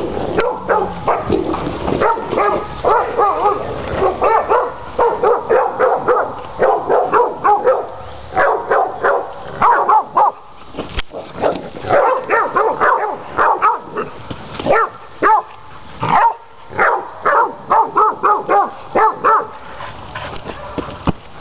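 Catahoula cur dogs barking rapidly and over and over at hogs, the bay barking that holds a hog at bay. The barking breaks off briefly a couple of times.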